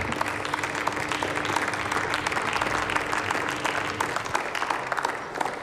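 Applause from many people clapping their hands, fading away near the end.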